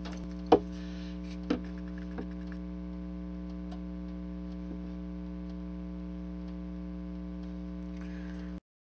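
Steady electrical mains hum, with a sharp click about half a second in and two fainter clicks over the next two seconds as a small plastic bottle of thick styrene solvent cement is opened and handled. The hum cuts off abruptly near the end.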